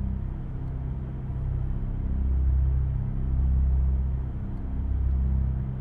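A car driving on a gravel road, heard as a low, steady rumble that swells and eases every second or two.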